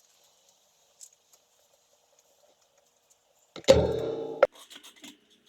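A short, loud squeal of rubber about three and a half seconds in, from the tire being levered off the motorcycle rim with tire irons, ending in a sharp click, followed by a few light clicks of the tools.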